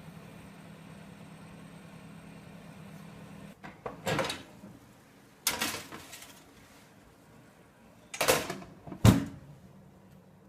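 A steady low hum that cuts off about three and a half seconds in, followed by four loud clunks, like a hinged door or lid being handled. The last two clunks come close together near the end.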